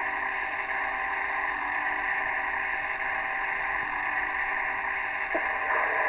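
Steam locomotive whistle sounding one long, steady blast, a chord of several pitches over a breathy hiss.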